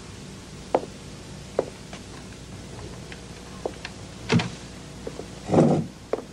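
Footsteps on a wooden floor, a few sharp, widely spaced steps, then a louder knock and, about five and a half seconds in, a short heavy thump with rustling as someone sits down by a hospital bed.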